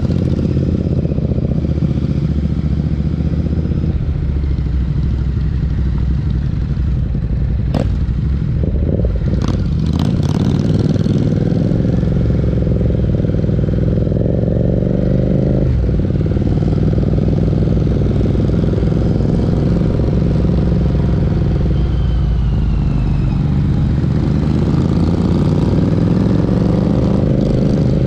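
Parallel-twin motorcycle engines running under load on a group ride, their exhaust note rising and falling as they accelerate and shift gears, with a sudden drop in pitch about halfway through. A few sharp knocks come about eight to ten seconds in.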